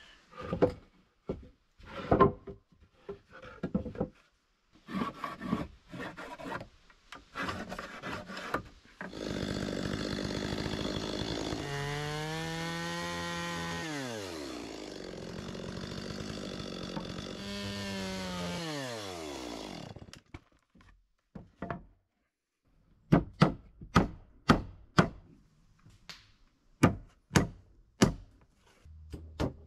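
Old wooden boards knock and clatter as they are laid on a platform frame. Then a Stihl chainsaw cuts through the boards for about ten seconds, its engine dropping in pitch twice as the throttle is let off. After a short pause come sharp, evenly spaced hammer blows, about two a second, driving nails into the boards.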